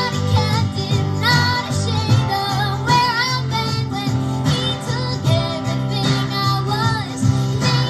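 Young female voices singing a Christian worship song, with wavering held notes over guitar and a steady bass accompaniment.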